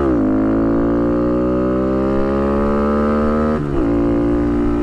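Honda Monkey 125's single-cylinder four-stroke engine pulling under acceleration. The engine note drops sharply as he shifts up right at the start, climbs steadily for about three and a half seconds, then drops again with another upshift and holds.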